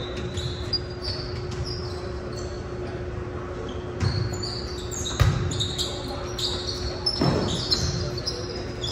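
A volleyball being struck in an echoing gym: three sharp hits in the second half, a second or two apart, as a serve and rally get going. Short high squeaks of sneakers on the hardwood floor come throughout, over a steady low hum.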